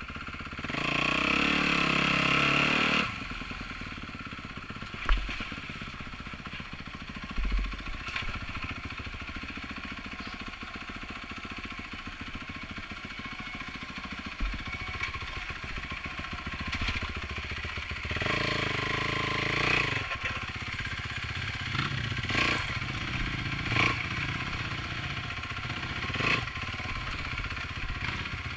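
Kawasaki dirt bike engine revving hard for about two seconds near the start, then running at low throttle, with the throttle picking up again past the middle. Several sharp knocks are heard along the way.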